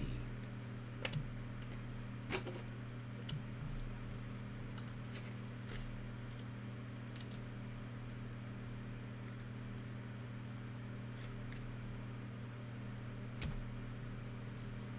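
Trading cards being handled: a few scattered soft clicks and taps, the sharpest about two and a half seconds in, over a steady low hum.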